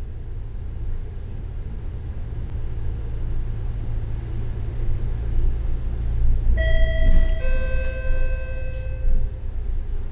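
Steady low rumble of a double-decker bus driving. About six and a half seconds in, a two-note falling chime rings, the second note a little lower, both dying away over about two seconds.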